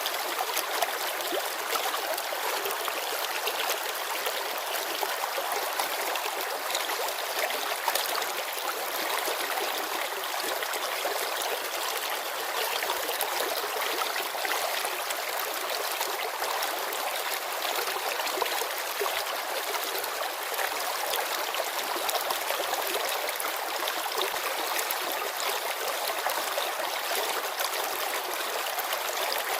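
Shallow mountain river babbling over stones: a steady splashing and trickling rush of water, bright and hissy with almost no low rumble.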